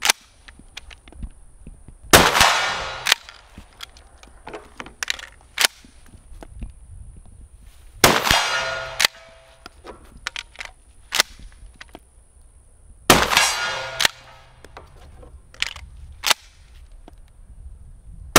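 Adler Arms HT108T pump-action 12 gauge shotgun firing slugs: three loud shots about five to six seconds apart, each with a short ringing tail, and a fourth shot right at the end. Smaller metallic clacks of the pump being worked and shells being handled fall between the shots.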